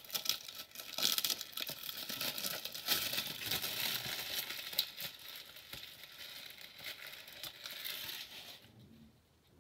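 Plastic wrap crinkling and tearing as it is pulled off a new DVD case: a dense, irregular crackle that stops about a second before the end.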